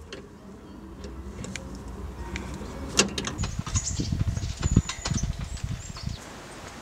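A few sharp clicks and knocks, then footsteps thumping on the boards of a small plank suspension bridge while its chain railings clink.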